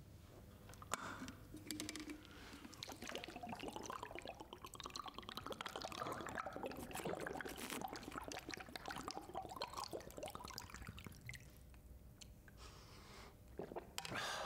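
A person drinking water in long gulps from a plastic sports bottle, the water glugging and sloshing for several seconds before it eases off, with a short burst again near the end.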